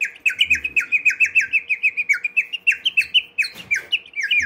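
3D-printed water bird whistle, filled with water and blown in and out through its mouthpiece, warbling like a songbird: a fast trill of short falling chirps, about six a second.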